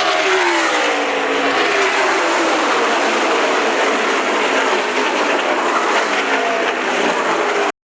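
NASCAR Cup stock cars' V8 engines at full throttle as a pack of cars races past, their engine notes dropping in pitch as each goes by. The sound cuts off suddenly near the end.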